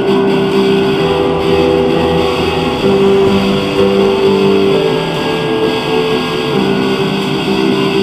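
Instrumental background music led by guitar, with held notes that change every second or so.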